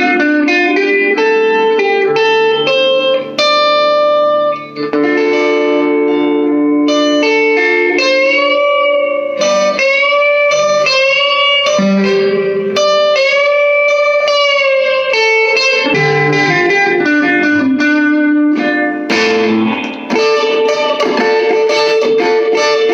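Electric guitar played at full gain through a small all-tube amp on its neck pickup: a lead line of single held notes in the high register, with string bends from about eight seconds in.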